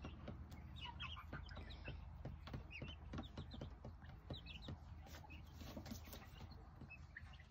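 Faint peeping of young chickens: short high chirps scattered at irregular intervals, with light clicks mixed in.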